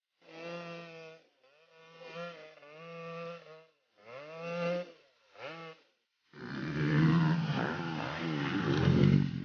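Off-road race engines revving hard in a string of short bursts with sudden silent breaks between them, the pitch climbing and dropping with throttle and gear changes. About six seconds in a louder, rougher stretch of engine noise begins.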